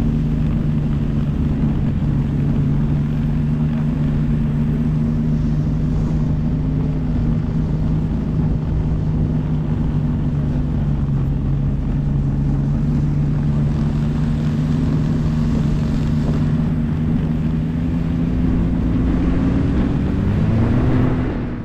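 Snowmobile engine running at a steady low speed, its pitch rising a little near the end.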